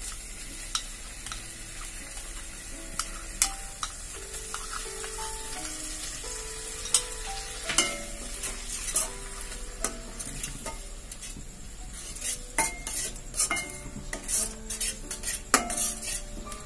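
Spice paste and freshly added yogurt sizzling in a stainless steel kadai, stirred with a metal spatula that scrapes and clinks against the pan. The clinks come more often in the last few seconds.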